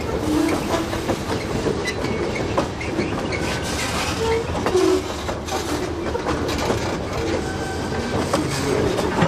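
Freight train of boxcars and a tank car rolling slowly along the rails, a steady rumble with irregular clicks and clanks and a few brief wheel squeals.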